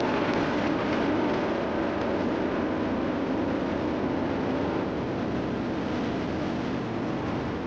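Steady jet roar of the X-59's single GE F414 turbofan engine as the aircraft flies with its gear down, easing slowly in level.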